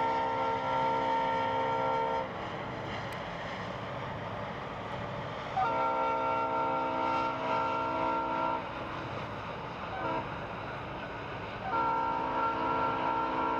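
Diesel locomotive horn sounding the grade-crossing pattern: two long blasts, a short one, then a long one, over a steady running rumble between blasts.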